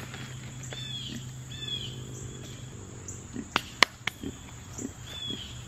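Short downward bird chirps, repeated every second or two, over a low steady hum. A few sharp clicks and knocks come around the middle, the loudest about four seconds in.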